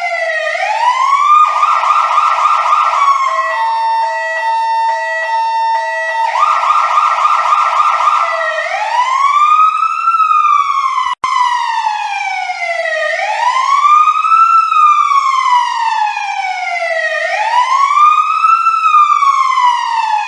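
Electronic siren switching between patterns. It starts with a slow wail rising and falling every few seconds, breaks into a fast warble about a second and a half in, then a run of quick stepped tones, then the warble again. From about eight seconds on it returns to the slow wail, cutting out for an instant about eleven seconds in.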